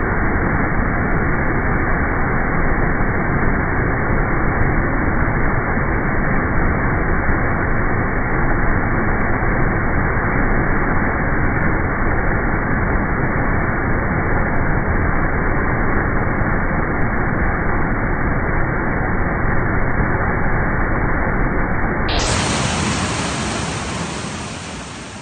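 Steady loud rush of floodwater, heard as a dull, even noise with no distinct events. Near the end it turns brighter and hissier, then fades out.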